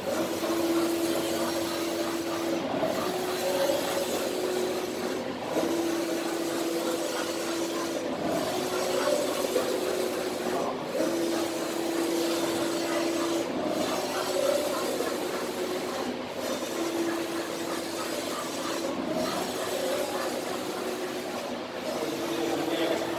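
Flatbed piezo inkjet exposing machine printing: its print-head carriage runs back and forth with a steady motor hum, reversing about every two and a half to three seconds, the hum stronger on every other pass.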